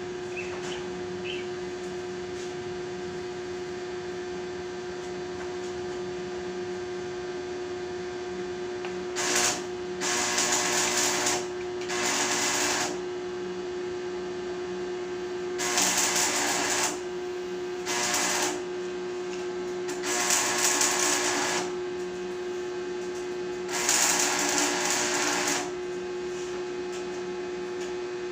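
Arc welding machine humming steadily, with about seven short runs of crackling, hissing arc lasting a second or two each, starting about nine seconds in: short welds or tacks on a metal gate.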